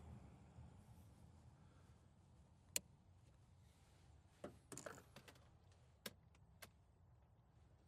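Faint, sparse clicks and taps of hands working a relay out of its socket in the car's relay box: one sharp click, a short cluster of small clicks a couple of seconds later, then two more single clicks.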